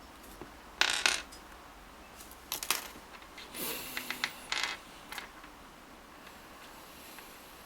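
Small stainless steel reel crown screws clinking as they are handled and set down on a hard surface: a sharp metallic click about a second in, then a run of lighter clicks and a brief scrape a few seconds later.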